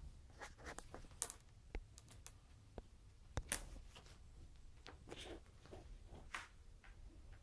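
Faint scattered clicks and brief rustles of Birman kittens' paws and claws scrabbling on a quilt and tiled floor as they pounce at a feather wand toy.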